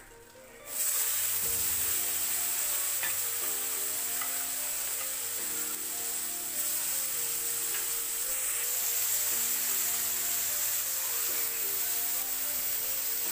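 Small prawns frying in hot oil in a wok. A loud sizzle starts suddenly about a second in, as they go into the oil, then stays steady.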